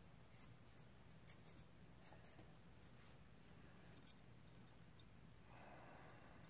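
Near silence: room tone with a few faint small clicks, and a faint soft hiss near the end.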